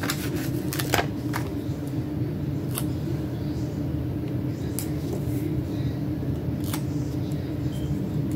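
A steady low hum underneath a few light clicks and taps as paper stickers are peeled from a sheet and pressed onto a planner page with tweezers.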